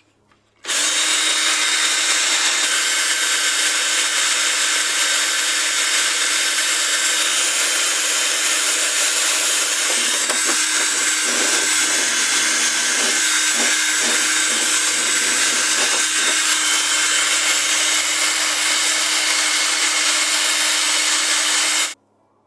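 Cordless drill spinning a wire brush at a steady speed, scrubbing a metal secateur part clean, with scraping where the brush bites between about 10 and 17 seconds in. It starts about half a second in and stops suddenly just before the end.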